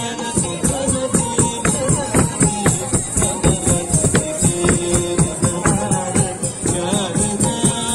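Bharatanatyam dance music: a fast, even percussion beat under held melodic notes, with a steady high jingling.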